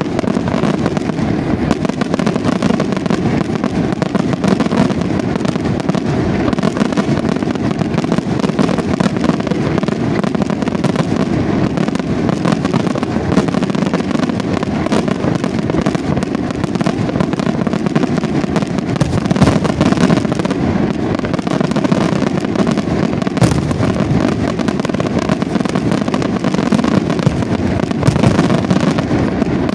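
Aerial fireworks display: a dense, continuous barrage of shell bursts, rapid bangs and crackling with no pauses.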